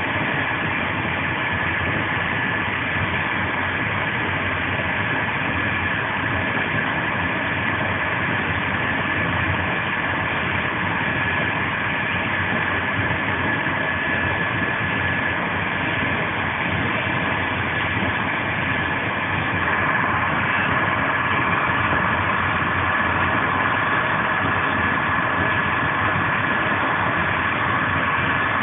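Steady rolling noise of an Intercidades passenger train running at high speed on newly renewed track, heard from inside a Corail coach, with a faint steady whine and no rail-joint clicks. It grows a little louder about twenty seconds in.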